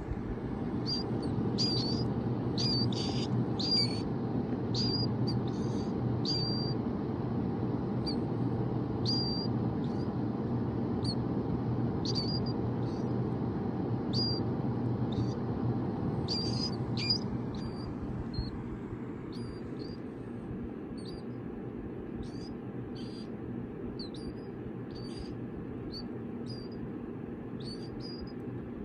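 Baby killdeer chicks peeping: short, high peeps, one or two a second, with a brief lull near the middle. Under them a steady low whir from a space heater's fan, which drops a little about two-thirds of the way through.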